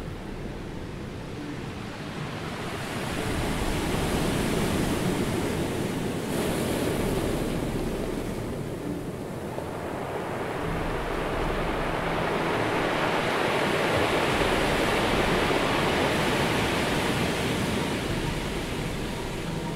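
Ocean surf: a steady rush of breaking waves that swells about three seconds in, eases a little, then swells again from about eleven seconds on.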